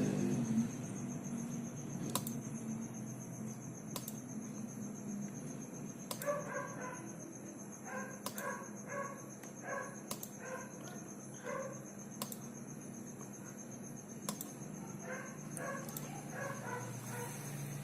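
Bird calls in clusters of short, quick notes, over a steady high-pitched whine, with a sharp click about every two seconds.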